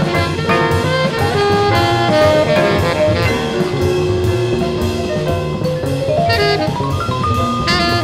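Background jazz music with horns and a drum kit keeping a steady beat, a run of rising notes near the end.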